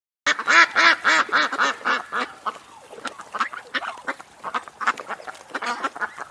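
A duck quacking in a fast run of about four quacks a second, loudest over the first two seconds and then a quieter string of calls.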